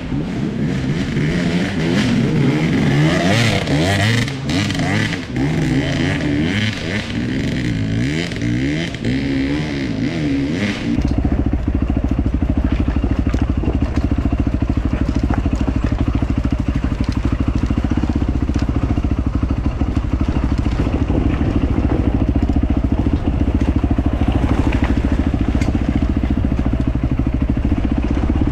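Enduro motorcycle engine ridden over rough trail, its revs rising and falling over and over for the first ten seconds or so. It then cuts abruptly to a steadier engine drone with a low rumble.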